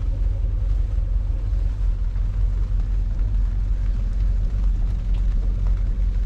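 Boat engine running steadily at low speed, a constant low rumble heard from inside the boat's cabin.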